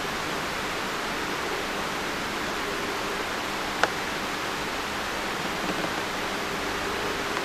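Steady rushing of running water from a nearby stream, with one sharp click about four seconds in.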